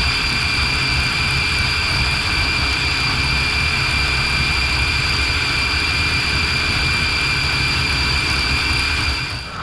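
Electric motor and gears of an Axial Capra radio-controlled crawler running at a steady speed: a constant high whine over a low rumble. It cuts off suddenly near the end.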